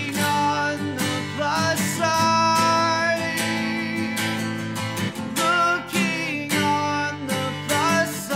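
Outro music: a song led by strummed acoustic guitar.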